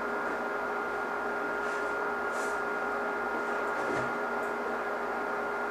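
Steady machine hum with a constant high whine, and a few faint rustles of handling.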